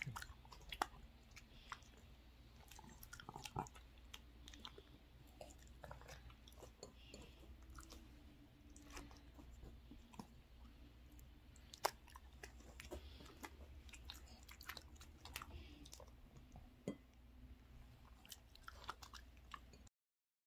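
Small dog chewing and crunching pieces of raw cabbage taken from the hand, with quiet scattered crisp crunches and one sharper crunch about halfway.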